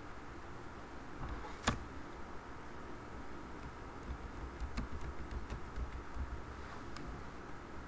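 Computer keyboard keystrokes while text is being retyped: one sharp key click about two seconds in, then a quick run of lighter key taps in the second half, over a low steady room hum.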